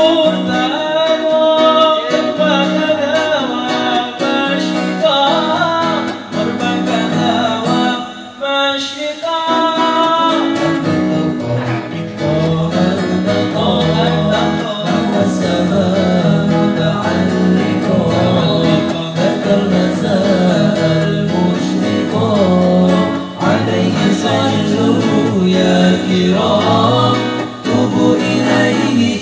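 Several male voices singing a sholawat (Islamic devotional song) together, with an acoustic guitar accompanying them. The singing breaks off briefly about eight seconds in, then carries on.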